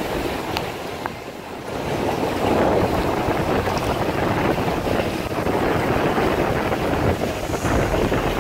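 A boat under way, its motor and water rushing past the hull mixed with wind buffeting the microphone. The noise dips for a moment about a second in, then rises again.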